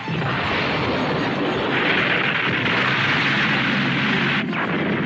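Animated-series explosion sound effects: a sustained noisy blast that swells louder about two seconds in. It breaks off about four and a half seconds in as another explosion begins.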